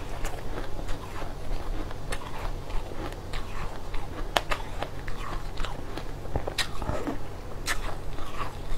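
Close-up crunching and chewing of coloured shaved ice, with a metal spoon scooping through the ice in the bowl. The crunches come irregularly, with a few sharper ones in the second half, over a steady low hum.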